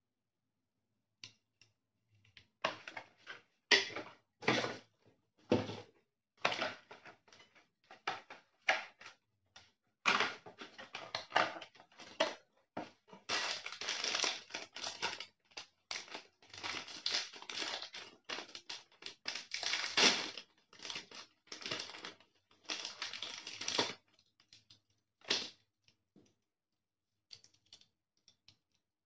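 Paper and cardboard packaging being handled and unwrapped by hand: irregular rustling and crinkling in quick bursts, densest in the middle and thinning out near the end.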